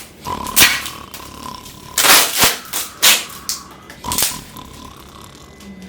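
A man's loud, exaggerated snoring: about four harsh snorts and grunts at uneven intervals, with a thin whistling tone under some of them.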